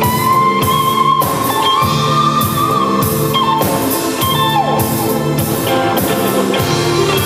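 Live rock band playing: an electric lead guitar holds long notes and bends them, over drums keeping a steady beat and bass.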